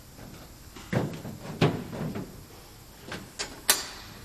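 A run of hard clunks and knocks from metal fittings and tools being handled on a car-dismantling drain rig under a raised car. The loudest is a sharp metallic click near the end.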